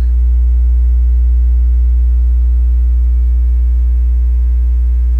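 Loud, steady low electrical mains hum with a buzzy stack of overtones, unchanging, with no other sound over it.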